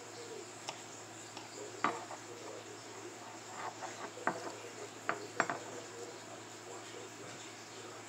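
Scattered light clicks and taps from a kitchen knife and hands at work on an orange as it is cut and peeled. They fall in small clusters around the middle of the stretch, over a faint steady hiss.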